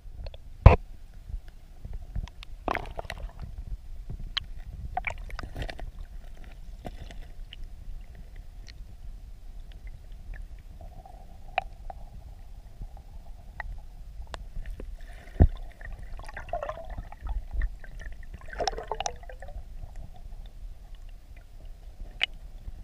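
Stream current heard underwater through a camera housing: a steady low rumble with scattered sharp clicks and knocks, two of them louder, one just after the start and one about two-thirds through.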